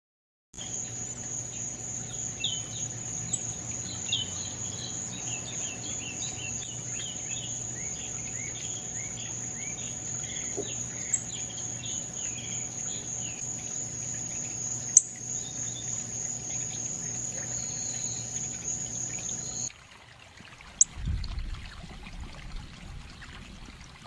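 Outdoor field ambience: a steady high-pitched insect trill, with many short bird chirps scattered over it. About 20 s in it cuts to a quieter scene with a low rumble and a single click.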